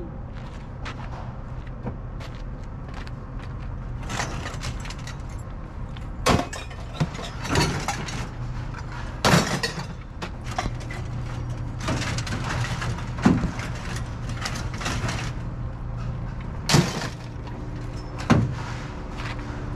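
Scrap being unloaded by hand from a pickup truck's bed and tossed down, landing in about six sharp impacts with smaller knocks between, over a steady low hum.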